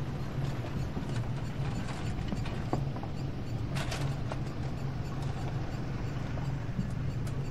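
Ship's engine running with a steady low drone as the ferry moves under way. Scattered clicks and ticks sound over it, the sharpest about four seconds in.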